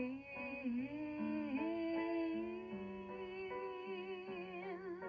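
Song music from a Mindscope animated black-cat Halloween decoration: a wordless stretch between sung lines, a smooth melody line that wavers near the end, over bass notes stepping from pitch to pitch.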